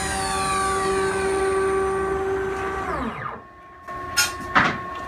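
CNC router and its dust extraction running steadily, then shutting off about three seconds in, the pitch falling away as it winds down. Two short knocks follow.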